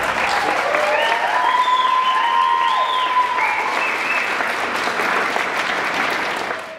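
Audience applauding, with a few high whoops and cheers gliding over the clapping. The applause fades out near the end.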